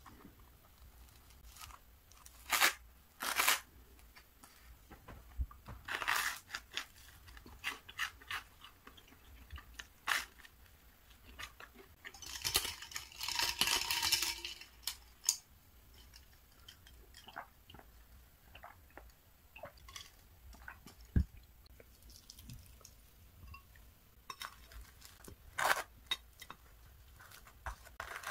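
Bites of crisp toast with walnut cream cheese being crunched and chewed up close, in short scattered crunches with a longer stretch of crunching about halfway through. Near the end, a knife scrapes the spread across the toast.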